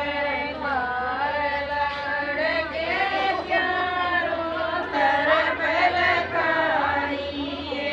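A group of women singing together in unison, a continuous, repetitive chant-like song.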